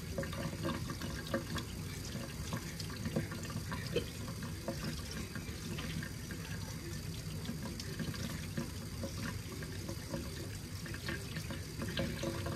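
Kitchen tap running steadily into a stainless steel sink, the stream splashing over a salmon fillet as hands rub and peel the skin off under the water, with a few small handling clicks.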